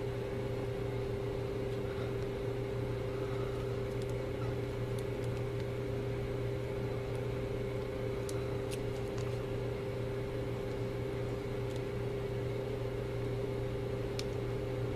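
Microwave oven running with a steady hum, a few faint ticks over it.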